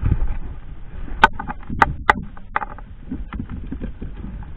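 A kayak bumping and scraping in to the bank, with a few sharp knocks of gear and hull in the middle of it.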